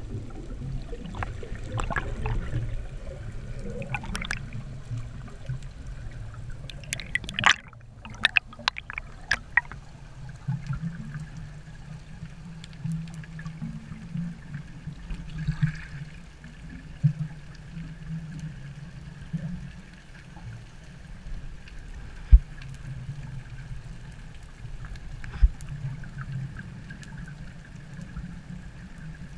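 Underwater water noise: a steady low, muffled rumble with gurgling and scattered sharp clicks, a cluster of them about seven to ten seconds in and two single louder clicks later.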